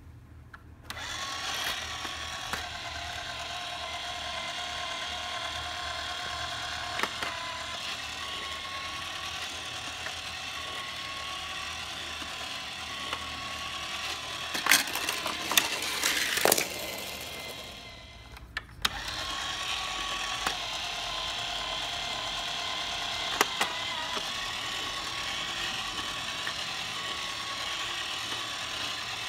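Small electric motor and plastic gears of a toy engine-shed playset's turntable whirring steadily as it spins a die-cast engine around. A few clicks come about fifteen seconds in, then the whir stops for a second or so and starts again.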